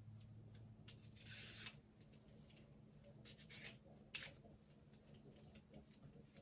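Faint scraping of a peeler on daikon radish skin, a few short strokes with quiet between.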